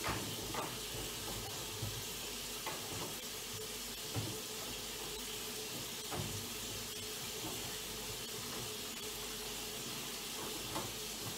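Cloth wiping out the inside of a microwave oven, with a few light knocks against it, over a steady hiss.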